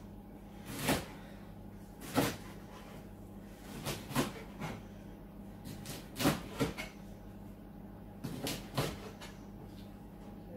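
Kitchen knife chopping leeks into small rings on a chopping board: sharp knocks of the blade meeting the board, irregular, singly or two or three in quick succession about every second or two.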